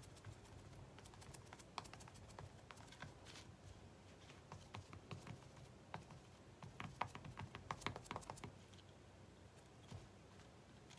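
Faint, irregular light clicks and taps from small MDF ornaments being handled and painted by hand.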